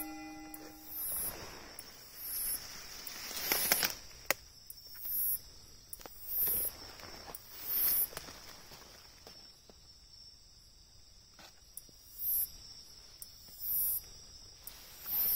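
Japanese bush katydid (umaoi, Hexacentrus) singing at night: a short, high-pitched chirping call repeated about every one and a half seconds, pausing for a few seconds in the middle. Under it runs a steady high trill from other insects, with a few sharp clicks from movement through the vegetation.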